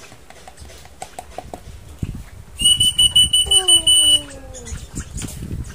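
An electronic beeper sounding a rapid run of loud, high, even-pitched beeps for about a second and a half, starting about two and a half seconds in. It is heard over low knocking and handling noise, and a lower call falls in pitch as the beeps end.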